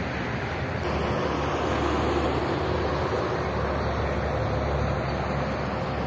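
A steady motor drone with a low hum and a faint held tone, growing a little louder about a second in.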